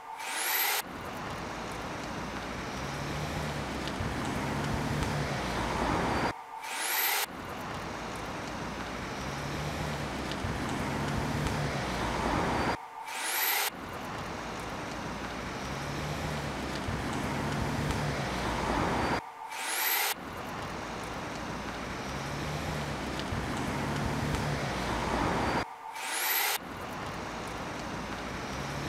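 Looped recording of street traffic: a steady hiss of passing vehicles with a low engine hum, repeating about every six and a half seconds. Each repeat starts with a brief drop-out and a short high rising whine.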